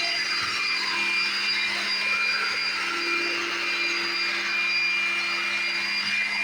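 Vacuum cleaner running steadily, a constant rushing hum with a high whine over it.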